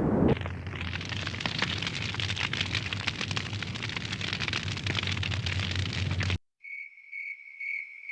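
Crackling fire sound effect, a dense hiss full of small pops, that cuts off suddenly about six seconds in. Then crickets chirping: a high, steady trill pulsing about twice a second.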